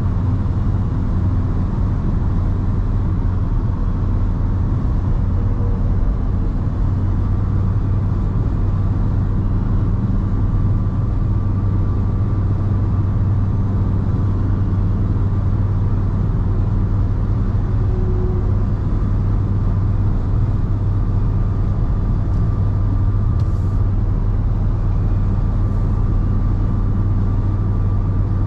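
Steady in-car drone of a Škoda Octavia II's 1.9 TDI four-cylinder diesel cruising at motorway speed, under an even wash of road noise.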